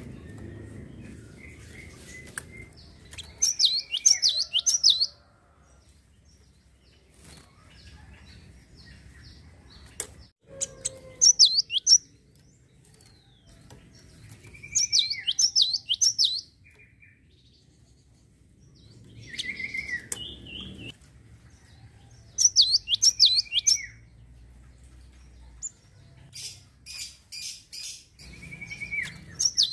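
Java sparrow singing. It repeats song phrases every few seconds, each a run of clicks followed by rapid, high, down-slurred notes, with short quiet gaps between phrases.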